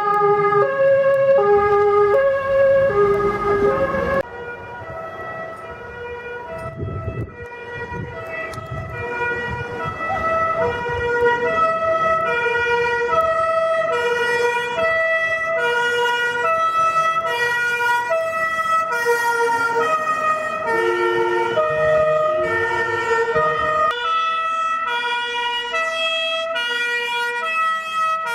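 German two-tone fire engine sirens (Martinshorn) alternating between a high and a low note, with truck engine noise beneath. About four seconds in, the sound cuts to another passage where more than one siren sounds at once, out of step with each other.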